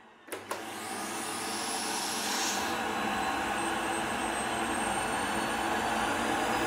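Easy Home canister vacuum cleaner switched on with a click, its motor spinning up with a rising whine to a steady run at low strength. It is drawing the air out of a vacuum storage bag through an adapter on its hose, so little air flows through it.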